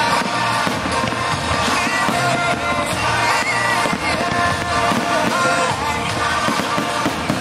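Pop-rock song with singing and a full band backing, with fireworks bangs mixed in underneath.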